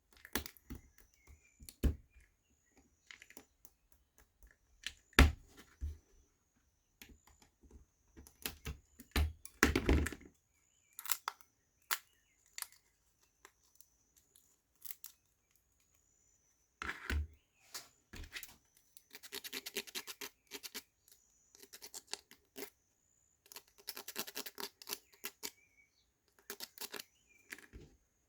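Small laser-cut wooden pieces being handled, sanded and waxed by hand: scattered clicks and knocks of wood on wood, with bursts of scratchy rubbing, the longest about ten, twenty and twenty-four seconds in.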